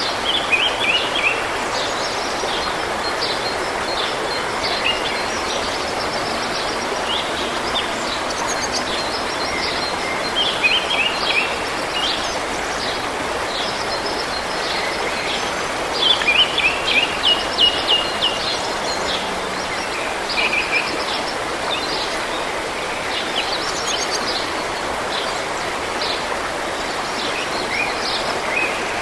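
Forest stream running steadily, with several songbirds singing and chirping over it throughout, in quick series of short high notes.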